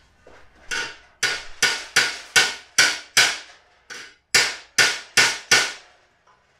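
About a dozen hammer blows on a cast-aluminum oil pan, roughly two to three a second with a short pause a little past halfway, each ringing briefly. The blows knock the holed, pushed-in section of the pan back flush.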